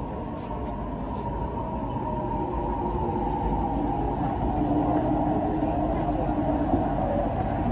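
CRRC Changchun electric multiple unit train running at speed, heard from inside the carriage: a steady rumble of wheels on rail with the whine of the traction motors in several tones. It grows gradually louder.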